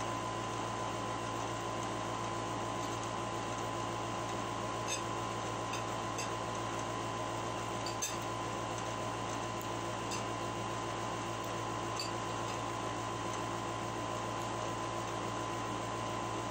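Steady background hum with a constant high tone throughout, and a few faint clinks of a spoon and fork against a plate while eating.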